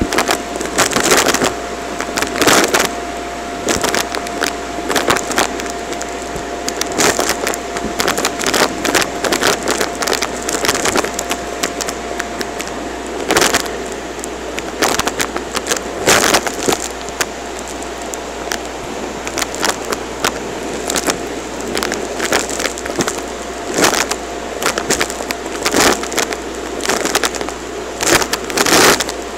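Vacuum cleaner running with a steady whine while its floor nozzle sucks up paper confetti and clumps of dust and lint from a hard floor. Pieces of confetti rattle and click up through the nozzle and wand in frequent, irregular sharp crackles.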